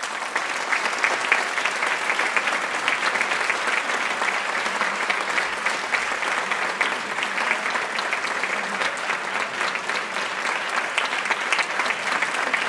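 An audience applauding: many hands clapping in a dense, steady patter that breaks out suddenly and keeps going.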